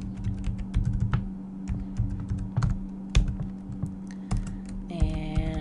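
Typing on a computer keyboard: quick irregular key clicks as a phone number is entered, over a steady low hum. A brief steady pitched tone sounds near the end.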